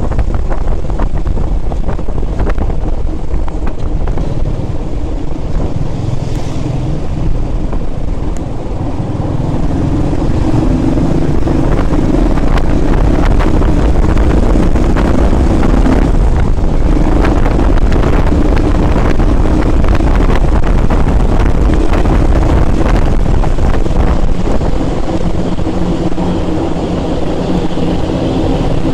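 Motorcycle engine running steadily at road speed, heard from on the bike under heavy wind rumble on the microphone.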